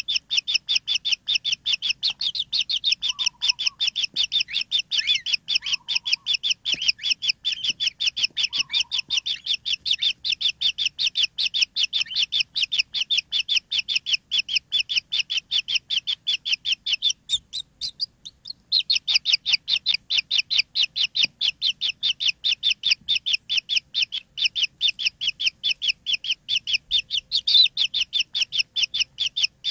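Kingfisher nestlings giving rapid, evenly repeated high chirps, about four or five a second: nestling begging calls. The chirping breaks off for about a second a little past halfway, then resumes.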